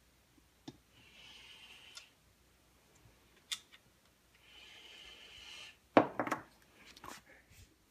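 Chainsaw parts and hand tools being handled on a workbench: scattered sharp clicks, and a loud knock about six seconds in followed by a short clatter as the saw body is moved. Two stretches of soft hiss come between them.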